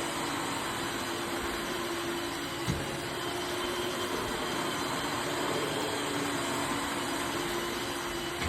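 Dyson DC18 upright vacuum cleaner running steadily with its new filters, with a single short knock about two and a half seconds in.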